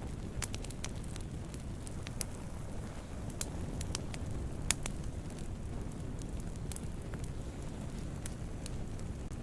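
Campfire burning wood: a steady low rush of flames with irregular sharp crackles and pops, the loudest pop a little under five seconds in.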